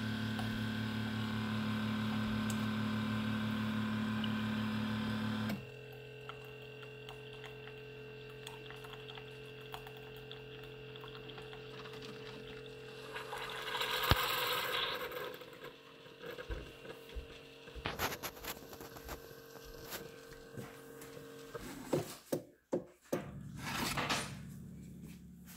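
Keurig coffee maker brewing into a mug: its pump hums steadily and cuts off suddenly about five seconds in, leaving a quieter steady hum. A short hissing sputter follows about fourteen seconds in, and a few clicks and knocks come near the end.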